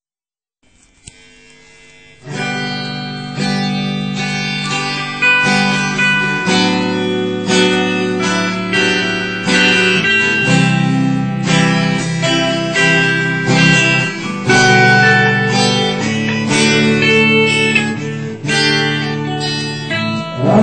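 Guitar intro to a band's song: guitar chords, strummed and picked, come in faintly and then at full level about two seconds in, changing every second or so.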